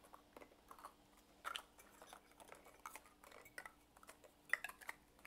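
Faint, irregular small clicks and crackles from a wok of stir-fried chicken and green beans cooking in a little broth, over a faint steady hum.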